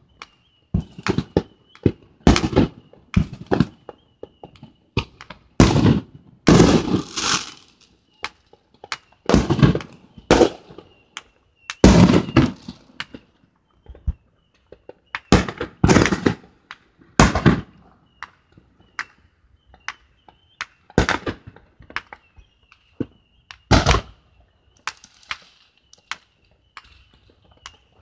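Fireworks going off: irregular sharp bangs, many followed by crackling, some single and some in quick clusters, with short gaps between.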